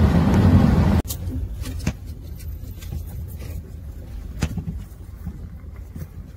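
Steady road and wind rumble of a car driving at motorway speed, heard from inside, which cuts off abruptly about a second in. After it comes quieter street traffic ambience with scattered sharp clicks and knocks.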